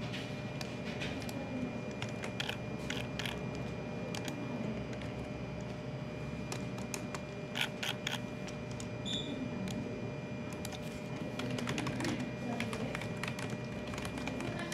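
Typing on a computer keyboard: irregular runs of key clicks with short pauses between them, over a faint steady hum.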